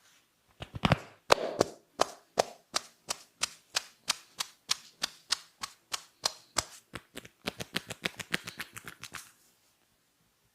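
A run of sharp snaps from a barber's hands working the head in a massage, about three a second, quickening near the end before stopping.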